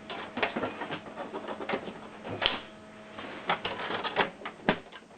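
Irregular run of sharp plastic clicks and short rattles, like parts of an inkjet printer and its add-on ink tanks being handled and snapped shut.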